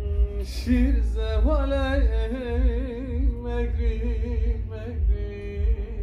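A man singing unaccompanied in an ornamented style, his voice sliding through runs and wavering on held notes, with brief breaths between phrases. A steady low rumble runs underneath.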